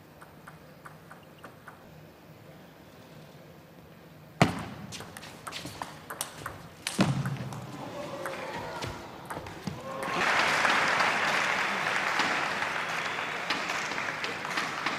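Table tennis rally: the ball clicks off bats and table, with a sharp loud hit about four seconds in and another near seven seconds. Audience applause starts about ten seconds in.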